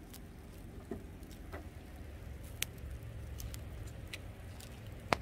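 Biting and chewing grilled corn on the cob close to the microphone: scattered small clicks and crunches of the kernels, with one sharper click near the end.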